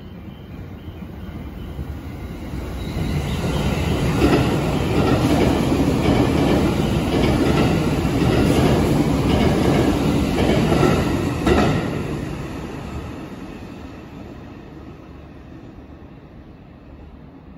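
E653 series electric express train passing through a station at speed without stopping: wheels rumbling on the rails, building up, loudest for about eight seconds with irregular clacks as the wheels cross rail joints, then fading as it draws away.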